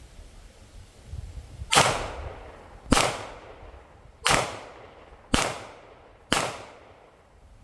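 Five gunshots fired at a steady pace, roughly one a second, each trailing off in a short echo.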